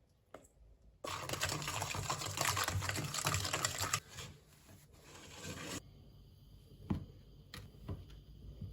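A small electric kitchen appliance motor running with a fast buzzing clatter for about three seconds, then running again more quietly for a second and a half, followed by a few light clicks and taps.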